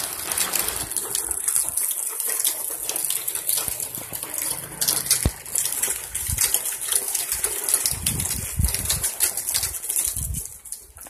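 Hard plastic wheels of a toddler's ride-on toy motorbike rolling over rough concrete: a continuous gritty scraping rattle full of small ticks, with a few dull low bumps about eight seconds in.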